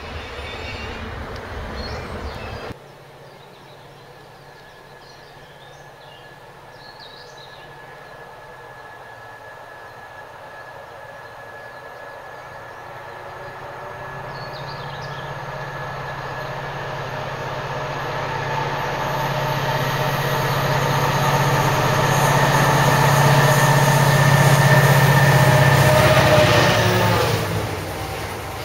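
Wind on the microphone for the first few seconds, then a pair of MY-class diesel locomotives with GM two-stroke engines approaching under power with a cement train, their drone and a steady whine growing louder and louder. It peaks as they pass, then drops away near the end to the rolling of the cement wagons.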